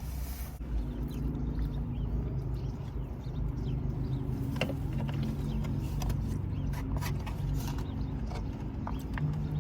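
Chewing and mouth smacking close to the microphone, with scattered small wet clicks, over a low steady hum.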